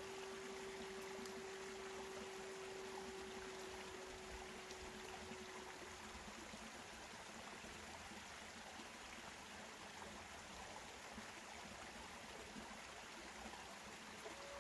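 Native American flute holding one low note for about six seconds before it fades out, leaving a steady background hiss; a higher held note begins right at the end.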